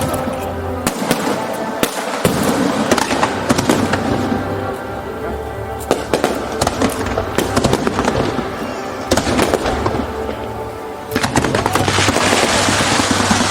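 Aerial fireworks bursting in a rapid run of sharp bangs and crackles over music played through loudspeakers. About eleven seconds in, the separate bangs give way to a dense, continuous crackle.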